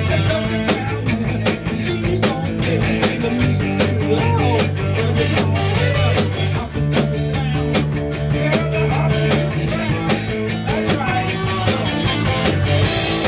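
Rock band playing an original song: a drum kit keeps a steady beat with evenly spaced cymbal strokes under held electric bass notes and guitars, with a melodic line that bends up and down in pitch.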